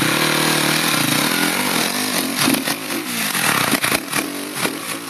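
Dirt bike engine revving hard under load on a climb, held at high revs at first, then rising and falling in quick blips of the throttle.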